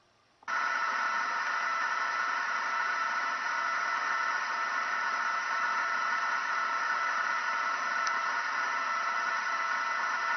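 Television static: a steady hiss that starts suddenly about half a second in and cuts off at the end.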